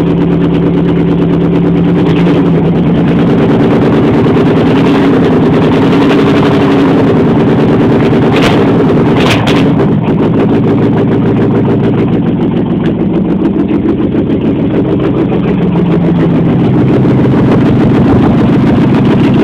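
AMC 360 two-barrel V8 idling with the driver's-side exhaust manifold removed, the exhaust coming straight out of the open head ports: really loud. The beat turns unsteady for a few seconds past the middle, and two short clicks come about eight and nine seconds in.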